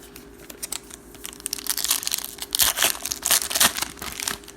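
Plastic-foil wrapper of a trading card pack being torn open and crinkled. A run of crackling that gets louder through the middle and stops near the end.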